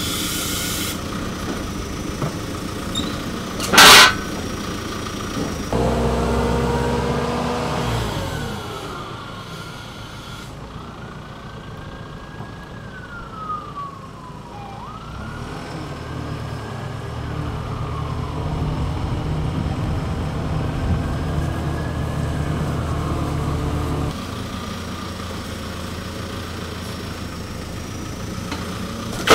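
An engine running, with a siren in the distance wailing slowly up and down in pitch for much of the time. A single sharp knock about four seconds in.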